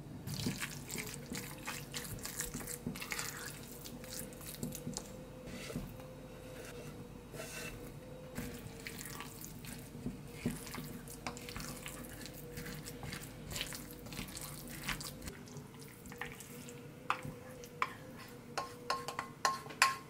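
Stirring a wet, crumbly mixture in a stainless steel bowl, first with a whisk and then with a wooden spatula: soft squelching and scraping with many small ticks against the bowl. Near the end come sharper clicks as the bowl is scraped out into a glass container, over a faint steady hum.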